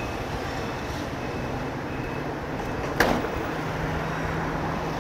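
Street traffic: steady vehicle noise with a low engine hum that steps up in pitch a little after halfway, and a single sharp knock about three seconds in.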